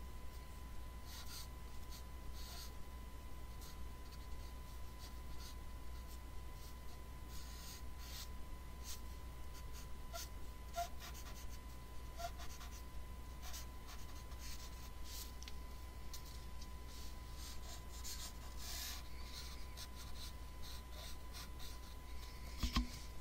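Colored pencil scratching across paper in quick, uneven sketching strokes. Under it runs a steady faint high tone and a low hum, and there is one louder knock just before the end.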